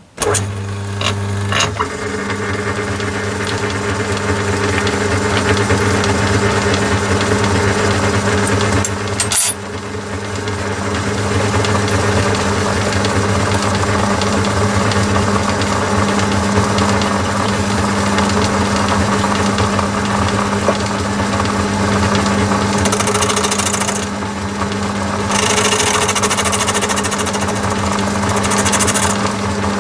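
Myford metalworking lathe switched on, its electric motor and belt-driven headstock starting up at once and running with a steady hum. Near the end a higher hiss joins in twice as the tool cuts into the metal workpiece.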